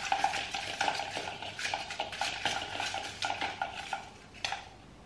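A hand rummaging through slips in a bowl, a fast run of small rustles and clicks against the bowl that dies away about four seconds in.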